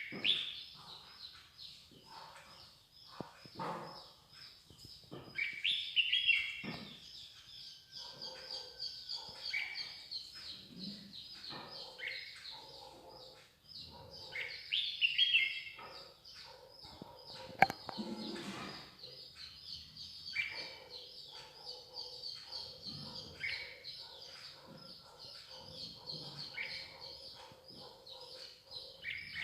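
Garden songbirds calling and singing, with several loud call phrases over a steady, high, rapidly pulsing background chorus. A single sharp click sounds about 18 seconds in.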